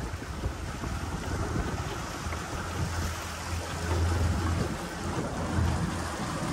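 Motorboat running across open water: a steady low engine drone under wind buffeting the microphone and water rushing past the hull, the drone growing stronger about two seconds in.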